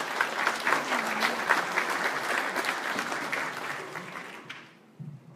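Audience applauding: a crowd's clapping that swells quickly and dies away about four and a half seconds in.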